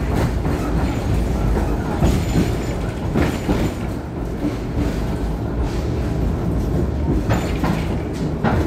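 V3A-93 articulated tram running along its track, heard from inside the car: a steady low rumble of wheels and running gear, with a few sharp clacks at irregular moments as the wheels pass rail joints.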